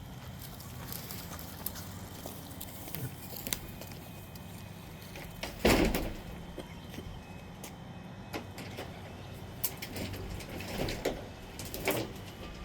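Scattered knocks and thuds, with one loud thud about six seconds in and a few smaller knocks near the end, over a low steady background.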